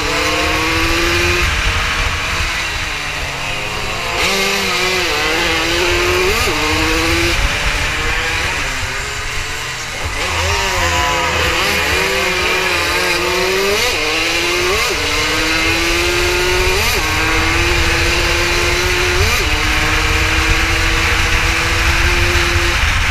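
An 80 cc racing motorcycle's engine heard onboard at full race pace, its pitch climbing and dropping sharply with each upshift. It eases off and picks back up around the middle, then pulls through about four quick upshifts in the second half.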